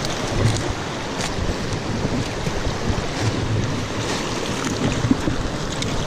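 Shallow stream rushing over rocks in a riffle, a steady wash of water noise, with wind buffeting the microphone.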